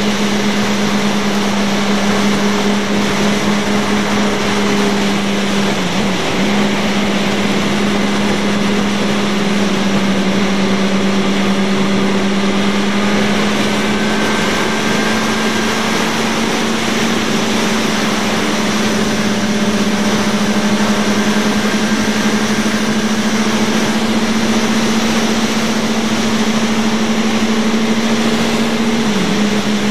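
Motorcycle engine running at a steady cruise under heavy wind rush on the bike-mounted microphone. The engine note dips briefly about six seconds in and again near the end.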